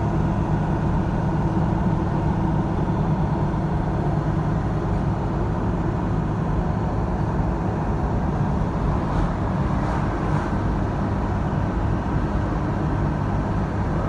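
Steady engine and road noise of a vehicle driving at speed, a low rumble with a constant hum.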